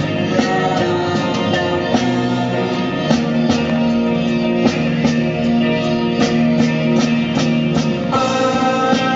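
A rock song with guitar and drums; no singing in this stretch.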